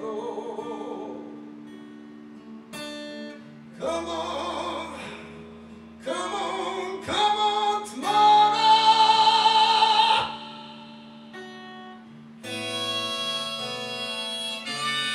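Man singing to his own strummed acoustic guitar, with a long held high note around the middle; about two-thirds of the way through he stops singing and a harmonica in a neck holder comes in over the guitar.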